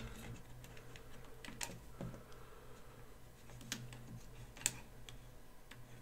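Scattered light clicks and taps of small plastic parts being handled as a slot car axle assembly is set into a 3D-printed tire truing machine, the sharpest click about three-quarters of the way in. A faint steady low hum lies underneath.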